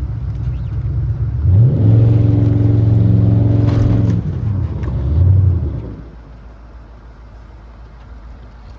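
An engine revs up about a second and a half in, holds high for a couple of seconds, then winds back down and drops away about six seconds in, leaving a low background rumble.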